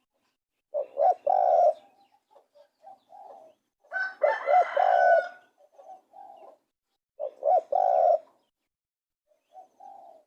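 Spotted dove cooing: three loud phrases about three seconds apart, each a short note followed by a longer one, with softer coos in between.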